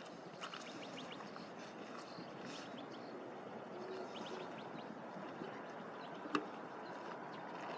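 Small birds chirping in quick, short calls over a steady background noise, with one sharp click a little after six seconds in.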